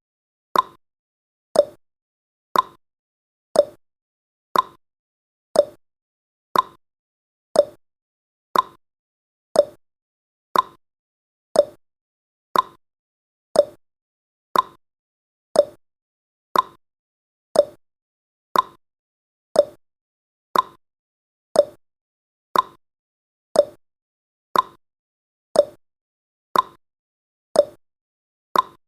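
Clock-style tick-tock sound effect of a countdown timer: short sharp ticks about once a second, alternating a higher tick with a lower tock.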